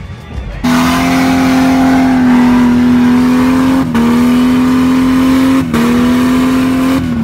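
Jeep Wrangler's engine held at high revs in one steady tone while its rear wheels spin in soft sand: the Jeep is stuck. The sound starts suddenly about half a second in, drops out for a moment twice, and the revs fall right at the end.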